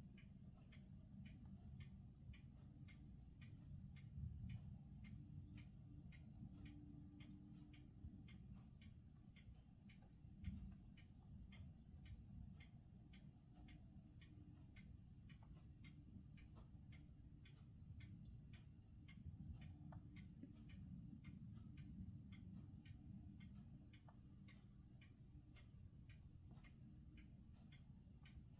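Near silence: faint, even ticking about twice a second over a low hum.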